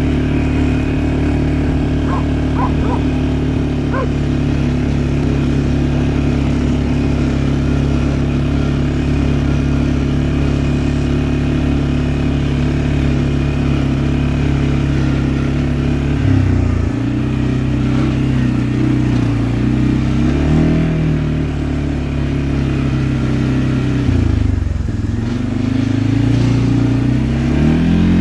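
A vehicle engine running steadily, then slowing and picking up speed several times in the second half.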